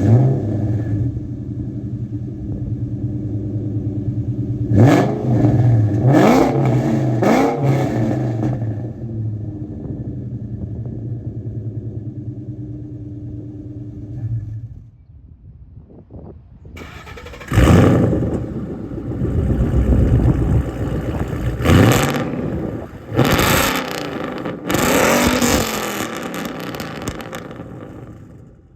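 Two Ford Mustang V8s with aftermarket exhausts, each started and revved. The first fires up at once, idles with a burbling note, blips the throttle a few times and shuts off about halfway through. After a short pause the second starts with a loud bark, revs hard four or five times and settles back toward idle.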